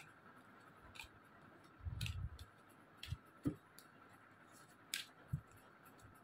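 Tarot cards being handled and laid down on a cloth-covered table: a few soft, scattered taps and flicks of card, with a low bump about two seconds in.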